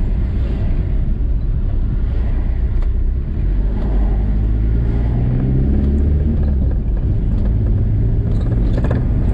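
VW T4 campervan driving along, heard from inside the cab: a steady low engine drone and road rumble, with the engine note growing stronger about four seconds in.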